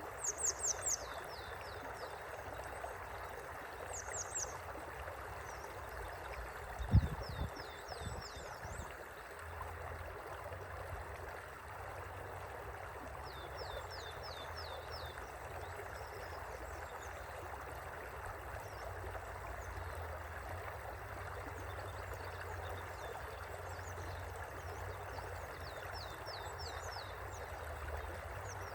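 A river flowing steadily. Several short series of high, quickly falling chirps come every few seconds over it, and there is one low thump about seven seconds in.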